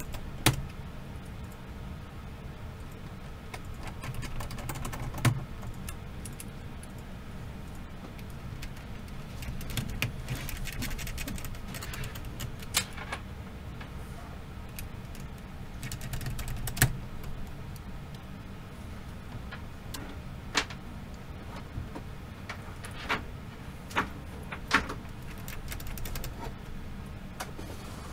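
Scattered small sharp clicks and light clatter of handling laptop parts and tools, about seven distinct clicks spread irregularly, over a steady low hum.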